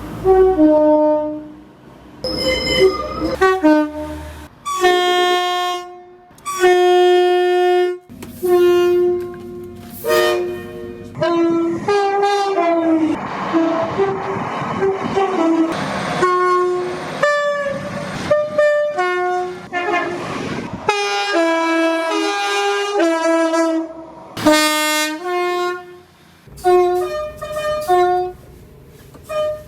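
A run of train horn blasts from one clip after another, each horn sounding a chord of several steady notes. Short toots and longer blasts follow with abrupt changes of pitch between clips. Through the middle the rushing noise of a moving train runs under the horns.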